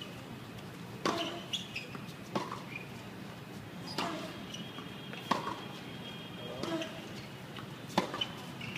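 Tennis rally on a hard court: the ball pops sharply off the rackets and the court surface, six knocks spaced about a second and a half apart.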